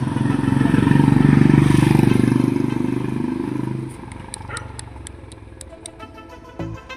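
A motor vehicle's engine passing by, growing louder to a peak about two seconds in and fading away within a couple of seconds, followed by a few faint ticks and clicks.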